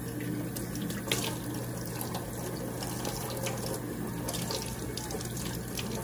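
Kitchen faucet turned on, water running into a stainless steel sink and splashing as a cup is rinsed under the stream, with a sharp knock about a second in.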